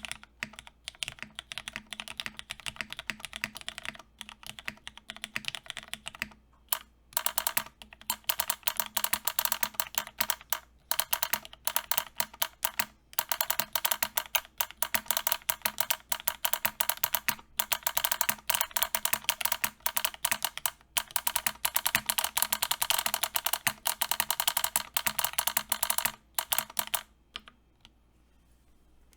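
Continuous typing on a plateless custom mechanical keyboard with lubed Cherry MX Black Hyperglide linear switches, a rapid stream of keystrokes. The typing is softer for the first several seconds, gets louder and denser from about a quarter of the way in, then stops shortly before the end.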